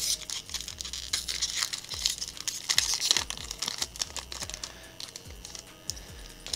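An Ikoria Magic: The Gathering booster pack's foil wrapper being torn open and crinkled as the cards are slid out. The crackling is dense for the first three or four seconds, then thins to scattered clicks.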